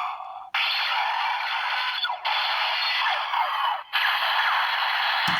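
DX Break Gunner toy gun playing its electronic sound effects and music through its small built-in speaker, with the Road Winter Shift Car loaded. The sound is thin and tinny with no bass, with sliding electronic tones, and breaks off briefly about half a second, two and four seconds in.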